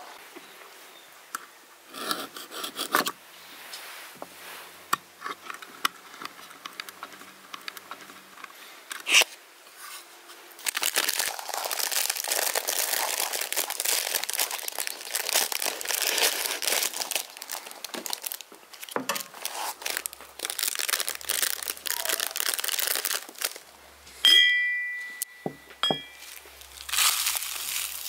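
A crinkly packet of tea being handled and opened, with long stretches of rustling and crackling. Near the end comes one sharp, briefly ringing clink of china.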